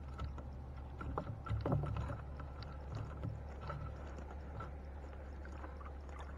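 Water splashing and dripping as a fishing net is hauled in by hand over the side of a wooden boat, with scattered small knocks and clicks, busiest about a second or two in.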